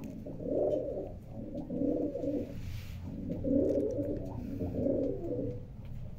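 Pigeon cooing in four low phrases about a second and a half apart, over a steady low hum.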